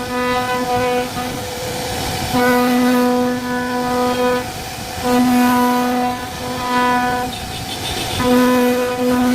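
Syfing CNC router carving wood: a steady high machine whine of unchanging pitch sounds in stretches of about two seconds, dropping out briefly between them as the bit works through the carving passes, over a constant cutting noise.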